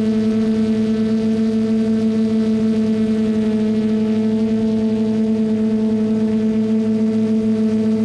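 Quadcopter drone propellers humming at a steady pitch, with a fast, even pulsing in the level.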